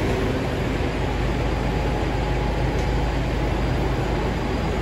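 Walk-in freezer evaporator fans running, a steady rush of air with a low hum.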